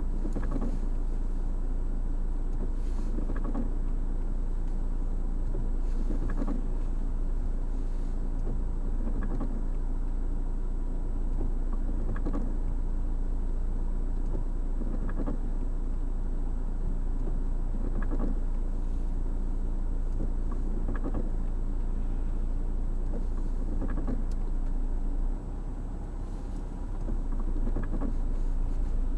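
Windscreen wipers sweeping about once every three seconds, heard from inside the car cabin over a steady low engine hum. The overall level dips for a couple of seconds near the end.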